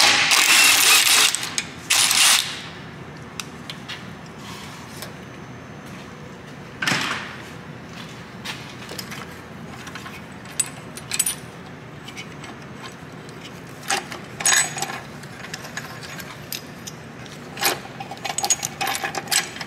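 Cordless impact wrench hammering the bolt of a bushing press tool for about two seconds at the start, pressing the rear lower knuckle bushing into the knuckle. Then scattered metal clinks as the press tool's sleeves and washers are handled and taken off the bolt.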